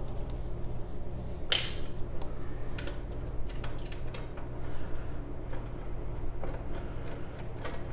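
Screwdriver clicking and scraping on the screws and perforated sheet-metal cover of a 3D printer's electronics enclosure as the cover screws are backed out. A brighter metallic scrape comes about a second and a half in, then scattered ticks and clicks, over a steady low hum.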